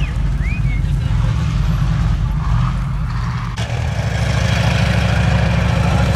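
Engines of military off-road vehicles running on a mud track, a steady low rumble. About halfway through the sound changes abruptly to a louder, hissier rush.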